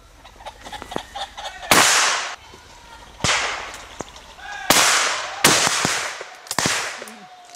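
Shotguns firing at driven pheasants: about five shots over some six seconds, each with a long echoing tail, the loudest about two seconds in and another close pair near the middle. Faint calls are heard between the shots.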